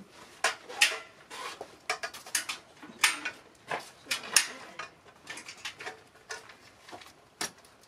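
Footsteps and scuffing on a plastic floor mat: an irregular string of light clicks and scrapes, two or three a second.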